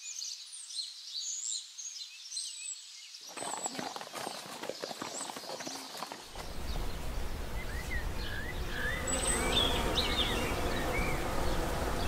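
Small birds chirping and singing over an outdoor background of noise. The background grows louder and fuller about six seconds in.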